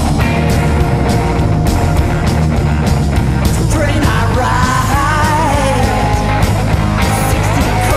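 Rockabilly band playing: electric guitar over upright bass and drums, with a steady driving beat.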